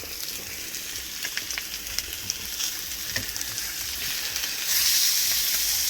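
Food frying in a pan, a steady spitting sizzle with a few small clicks; the sizzle gets suddenly louder near the end.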